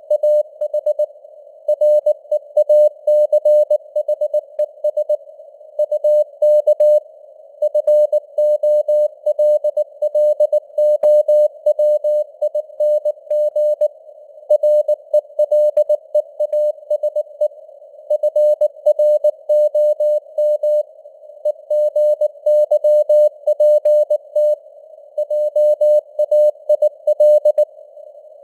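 Morse code (CW) at 19 words per minute: a single mid-pitched tone keyed on and off in dots and dashes, with short pauses between letters and words, over a narrow band of simulated radio noise.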